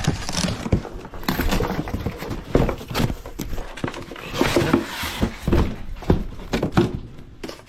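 Irregular knocking, clatter and rustling of cardboard and plastic packaging as a new furnace blower motor and its capacitor are unpacked and handled.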